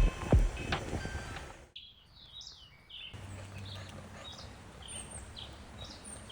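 Piano-like background music dies away in the first second and a half, then small birds chirp in short, repeated calls over a faint steady hum.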